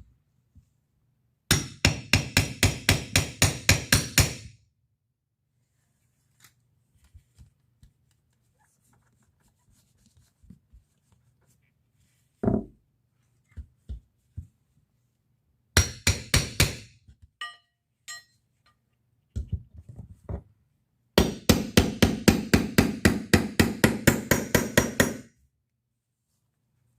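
Hammer tapping a crowbar to drive it in behind a baseboard and open a gap from the wall: runs of quick light strikes, about four a second, with a few single knocks between them, the longest run near the end.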